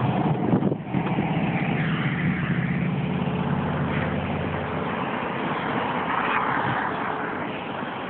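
A motor vehicle's engine running close by over a steady noisy hiss, its low drone fading away about five seconds in.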